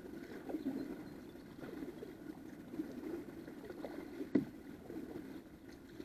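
Double-bladed kayak paddle stroking through calm river water, with soft irregular splashing and dripping from the blades. A single sharp knock about four seconds in.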